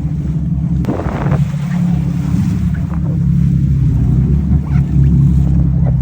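Engines of a 42-foot Bertram sportfishing boat running with a steady low drone, with wind on the microphone.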